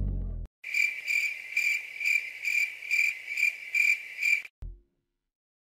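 Music cuts off half a second in, followed by an insect-like chirping: a high trill pulsing about twice a second. It starts and stops abruptly after about four seconds, like an edited-in sound effect.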